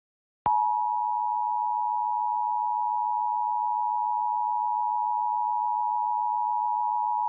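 Emergency Alert System two-tone attention signal: a steady pair of tones, sounded together and held without a break, starting about half a second in. It marks the start of an EAS alert, here a Required Monthly Test.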